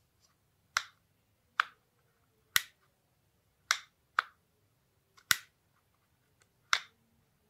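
Opel Corsa D rear door lock mechanism, freshly reassembled with its spring, clicking as its plastic lever is worked by hand: seven sharp clicks about a second apart, each the lever snapping back under the spring, the check that the spring is fitted and working.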